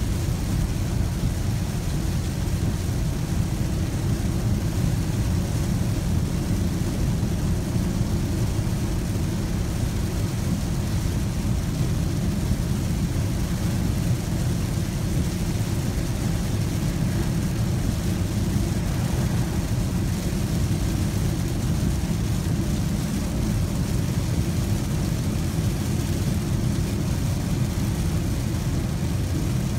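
Steady cabin noise inside a 2016 Audi Q5 3.0 TDI cruising at about 55 mph in heavy rain: a low drone of tyres on the wet road and the V6 diesel engine, with a hiss of rain and spray over it.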